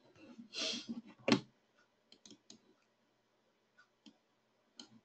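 Computer mouse clicks while operating charting software: a short rustle, then one loud sharp click about a second in, followed by several faint scattered clicks.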